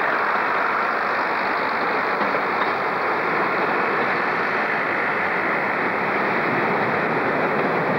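First-generation diesel multiple units running through a covered station, their engines working and putting out exhaust smoke. A steady noise without clear beats or changes.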